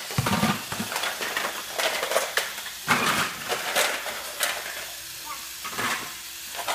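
Plastic Fisher-Price GeoTrax toy train pieces clattering, a run of irregular knocks and clicks as track and trains are handled.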